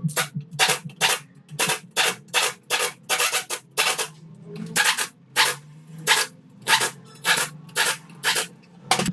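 Pneumatic impact wrench fired in about twenty short, sharp bursts, two to three a second, as it works bolts on an aluminium four-cylinder engine block.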